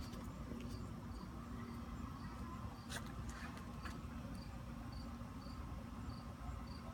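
A cricket chirping steadily, about two short high chirps a second, over a low steady hum, with a single sharp click about three seconds in.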